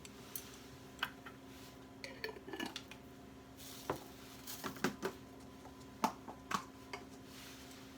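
Kitchen utensils tapping and clinking against dishes, about a dozen separate light knocks with irregular timing, over a faint steady hum.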